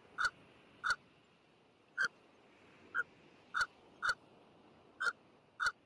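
Short, sharp animal calls repeating at uneven intervals, eight in all, each brief and clipped.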